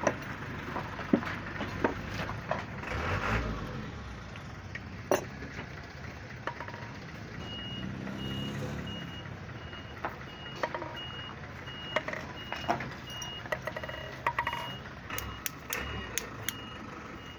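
A vehicle's reversing alarm sounding a high steady beep about twice a second, starting about seven seconds in, over a low engine rumble and scattered sharp clicks and knocks.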